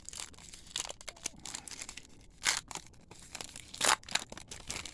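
Trading card pack wrapper and cards being handled: irregular paper crinkling and rustling, with two louder rips about two and a half and four seconds in.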